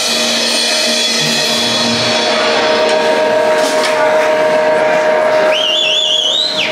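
Live band music at the end of a song, a chord held steadily over crowd noise. About five and a half seconds in, a high wavering whistle comes in over it and stops at the end.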